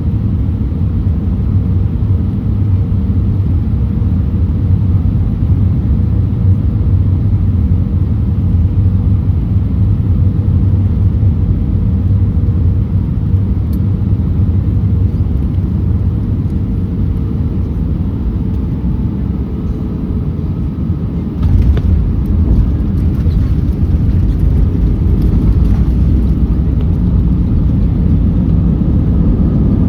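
Airbus A319 on the ground after landing, heard from inside the cabin: a steady low rumble of engines and airframe with a faint held tone. About two-thirds of the way through, the rumble suddenly grows louder and deeper, with light rattling.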